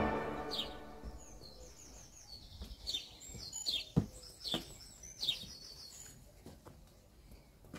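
Small garden birds chirping in short, high, falling notes, repeated irregularly, with a few sharp clicks, the loudest about four seconds in. Background music fades out in the first second.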